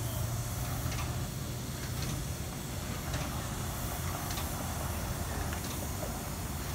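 Steady low hum and hiss from the steam plant of a trailer-mounted whistle rig with its whistle not yet blowing, with a faint tick a little more than once a second.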